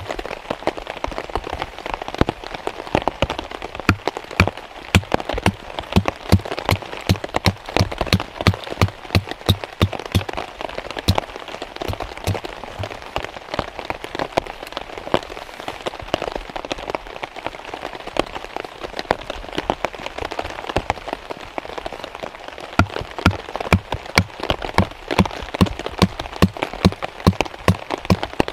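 Heavy rain falling on a tarp overhead: a steady hiss of rain with many sharp, irregular hits from single large drops.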